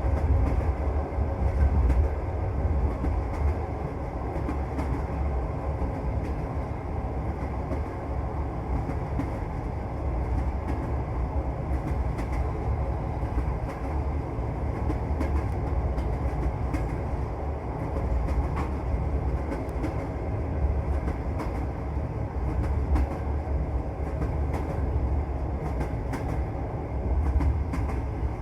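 Passenger train running along the track, heard from inside the carriage: a steady low rumble with the clicking of the wheels over the rails.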